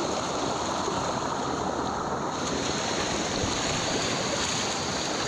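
Creek water rushing over rocks in small rapids: a steady, even rush.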